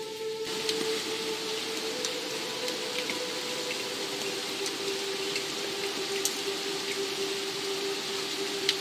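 Steady rain hiss with individual water drops ticking here and there, one sharper drop near the end. A soft sustained music drone runs underneath, its note shifting a couple of times.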